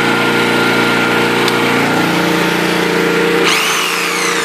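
Honda EM2500 portable generator's engine running steadily. About three and a half seconds in, an electric jigsaw plugged into it is switched on and its motor whines up in pitch, putting the generator under load.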